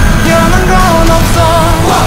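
Background music: a song with a wavering sung melody over a steady, loud backing.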